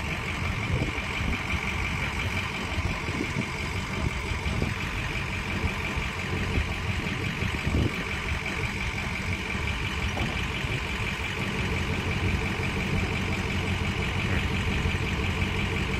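Telehandler's diesel engine running steadily while it holds a pontoon boat on its forks, with a steady high whine above the engine note.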